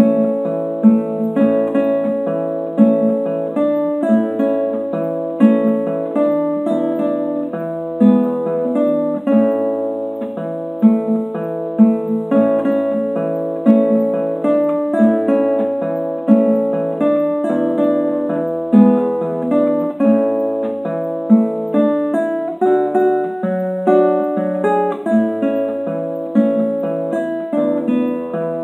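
Solo classical guitar playing a gato, an Argentine folk dance: a plucked melody over low bass notes, with sharply accented chords recurring about every second.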